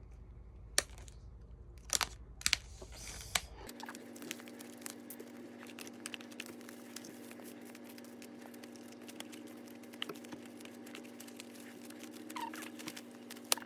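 Plastic shrink wrap crinkling and tearing as a DVD box is unwrapped by hand: a few sharp crackles at first, then a long run of small, dense crackling.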